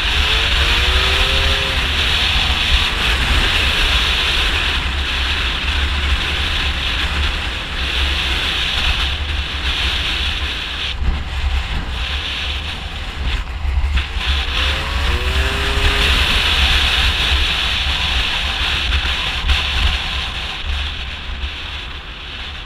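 Two-stroke engine of a Gilera Runner scooter with a Malossi 172 kit revving up through the gears, with a rising engine note near the start and again about fifteen seconds in, under heavy wind noise on the microphone. The overall sound drops off near the end.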